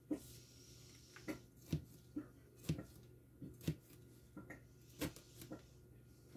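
Kitchen knife chopping green pepper strips into small cubes on a cutting board: sharp, irregular knocks, roughly two a second.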